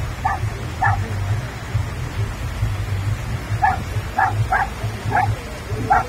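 A dog barking in short, high yelps, about seven of them at irregular intervals, over a low rumble.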